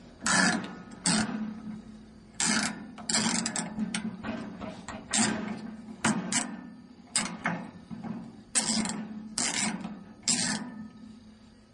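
Scrap metal being struck repeatedly, about a dozen irregular clanks, each ringing out and dying away before the next.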